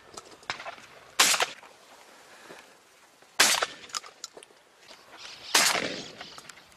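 Shotgun firing at doves in flight: three shots about two seconds apart, each with a short echoing tail.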